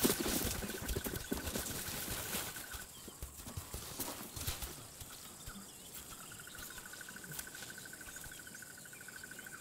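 Young lions scuffling and pouncing in play-fighting, rustling and thudding on dry ground, loudest at the start and fading after about three seconds. Under it an insect trills steadily with a fast pulse, dropping out around three seconds in and coming back about six seconds in.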